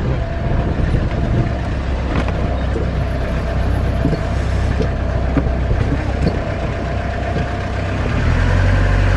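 Old Autostar 491 motorhome's engine running as it creeps along a cobbled street, with many small clicks and knocks from the body rattling. The engine gets louder about eight seconds in.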